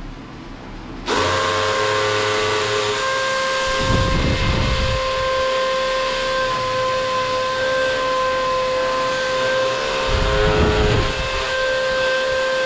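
Handheld power drill starting about a second in and running steadily with a constant whine as it drills into a wall, with two heavier low rumbles under load about four and ten seconds in.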